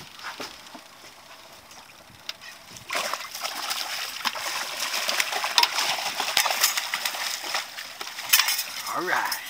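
A hooked salmon thrashing at the surface beside the boat, splashing water. The splashing starts about three seconds in and goes on in sharp, irregular slaps. A brief voice is heard just before the end.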